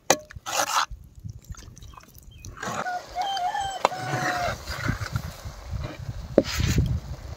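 Brinjal gravy bubbling in a clay pot over a wood fire, stirred and scraped with a wooden ladle, with a couple of sharp knocks. A short wavering animal call sounds about three seconds in.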